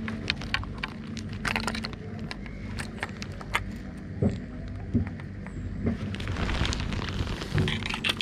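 Sharp clicks and rattles of a spinning fishing reel being stripped by hand for a repair, its spool pulled off the body. A steady low hum runs underneath.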